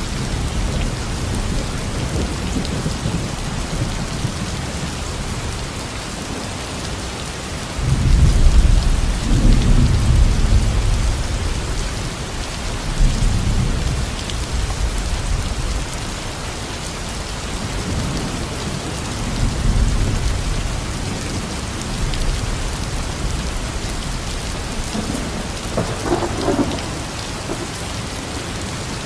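Steady rain falling, with low rolls of thunder rumbling under it: the loudest starts about eight seconds in and lasts a few seconds, with weaker rumbles later.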